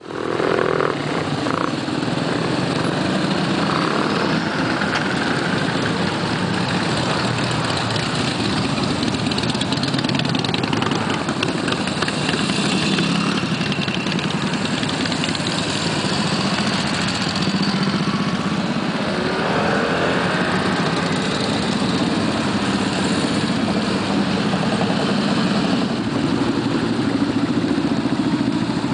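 A procession of motorcycles riding past one after another, their engines running steadily, with one bike's pitch rising and falling about two-thirds of the way through.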